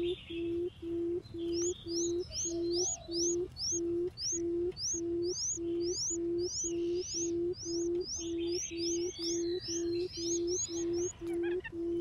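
Barred buttonquail giving its low booming 'um' call, one short hoot repeated evenly about two and a half times a second: the female's advertising call, used as a decoy call to draw in wild buttonquails. Thin, rising chirps of another small bird repeat above it from about a second and a half in until near the end.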